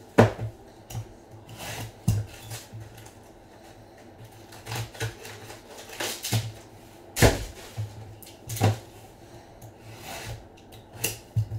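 Trading-card hobby boxes being handled and opened: several sharp knocks of cardboard boxes being set down, rustling between them, and a knife cutting into a box near the end.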